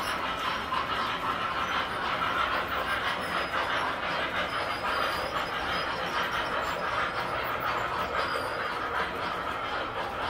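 Tinplate model train running on its metal track: a steady rolling rattle of wheels on rail.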